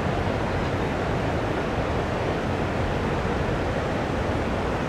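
Steady city ambience: a continuous, even rush of street traffic blended with flowing river water, with no single sound standing out.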